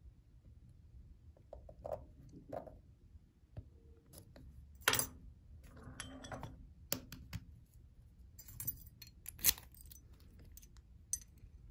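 Scattered small metallic clicks and clinks as a Yale large format interchangeable lock core and its parts are handled with a pick. Near the end, the keys on a key ring jingle as they are picked up.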